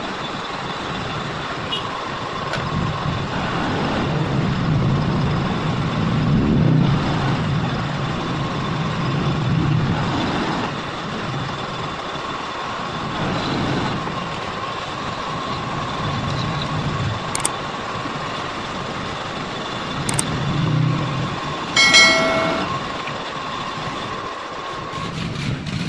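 Steady engine rumble of passing traffic, swelling and fading, with a short horn toot near the end.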